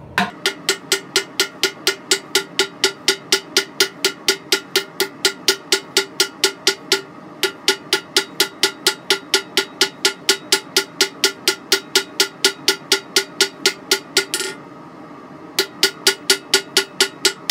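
Lighter hand hammer striking a red-hot bar of coil-spring steel on an anvil in a fast, steady rhythm of about four blows a second, the anvil ringing between blows. This is the bar being forged on its corners from square to octagon. The hammering pauses for about a second near the end, then resumes.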